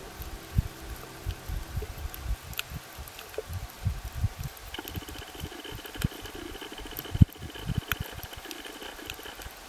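Audio recorded underwater: irregular, muffled low thumps and knocks of water moving against the camera housing, with a few sharp ticks. A faint steady high tone comes in about halfway through.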